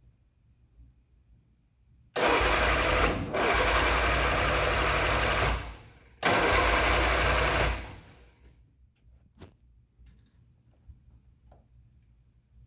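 1972 MG Midget's four-cylinder engine spun by its starter motor in two bursts, one of about three and a half seconds and a shorter one of about a second and a half, a fast even chatter. The engine is hard to get running.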